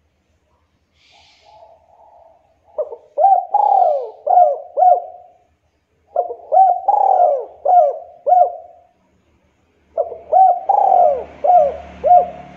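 Spotted dove (local Javanese derkuku) cooing: a soft short coo, then three loud phrases of about five hooked, gliding coos each, a second or so apart.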